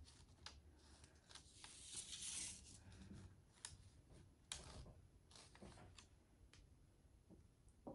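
Near silence with faint rustling and a few light clicks: hands rolling warm cookies in powdered sugar in a bowl.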